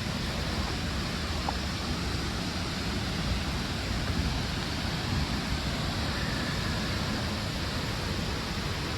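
Steady rushing roar of a nearby waterfall, an even noise that does not change.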